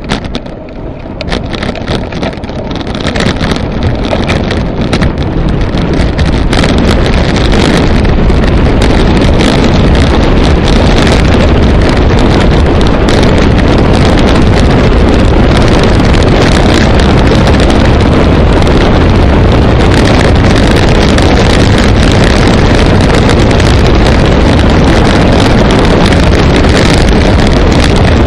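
Wind buffeting the microphone of a camera mounted on a road bike's handlebars as it descends a steep hill. The noise grows louder over the first several seconds as the bike picks up speed, then stays steady and loud.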